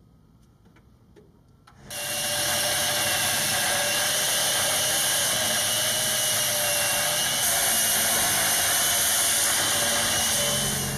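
Corded angle grinder with a cut-off wheel cutting into the metal wing skin of a KC-135 Stratotanker. It starts about two seconds in and then runs steadily.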